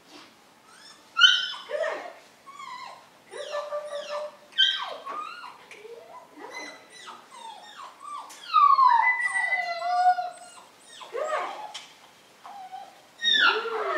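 Young puppy whining and yelping over and over, short high cries that slide in pitch, the loudest a little after the middle.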